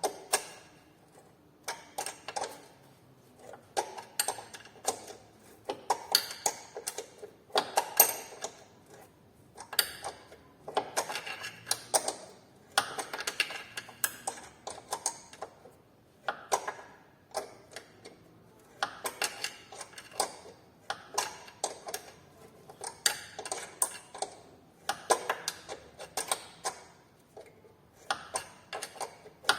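Hand ratchet clicking in repeated short bursts, stroke after stroke, as it turns a thread tap through a bolt hole, re-cutting a damaged thread.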